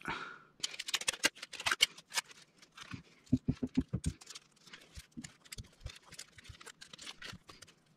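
Plastic drinking straws being folded and handled: irregular crinkling clicks, with a quick run of about six soft knocks around the middle.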